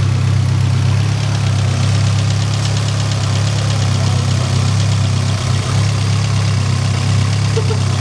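Dodge Neon's four-cylinder engine idling steadily with the hood open, just started after an engine-harness swap. An idle air control circuit fault code is still logged.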